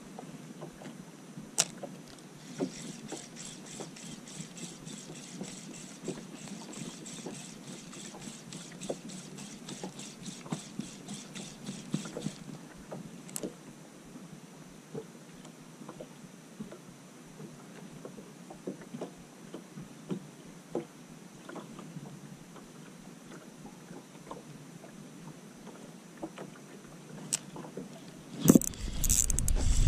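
Small waves lapping against the hull of a small boat at rest, with scattered light knocks. A fine, regular ticking at about four a second runs for about ten seconds near the start. Near the end a loud low rumble hits the microphone.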